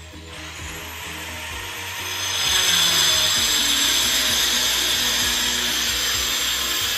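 Handheld electric marble cutter running and cutting into a stone floor; the cutting noise swells and grows much louder about two and a half seconds in, then holds steady. Background music plays underneath.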